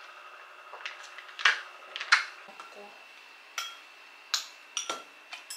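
Eating utensils clinking and tapping against a bowl: a string of short, sharp clicks at irregular intervals, about eight or nine in all.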